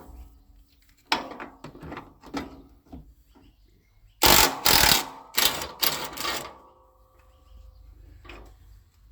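Power tool run in three short, loud bursts about four seconds in, working a tight fastener loose, after some light clicking and handling.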